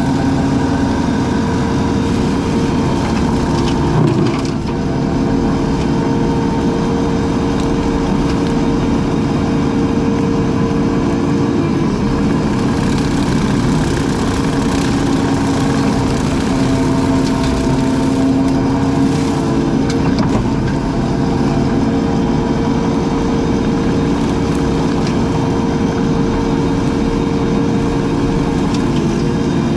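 Engine of brush-cutting equipment running steadily at a constant pitch.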